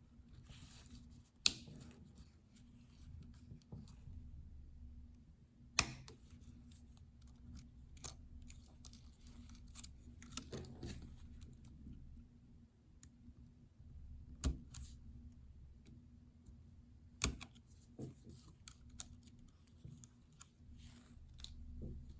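Small plastic clicks and snaps from a laptop keycap and its scissor-hinge clips being worked loose from the keyboard, irregular, with four sharp, loud clicks several seconds apart and softer clicks and scrapes between them.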